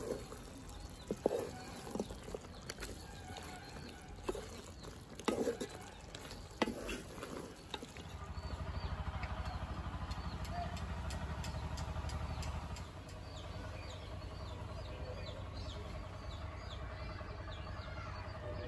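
A spatula stirring curry in a metal cooking pot, with sharp knocks and scrapes against the pot for the first several seconds. Then a steady low hum, loudest for about five seconds, with faint repeated bird chirps over it.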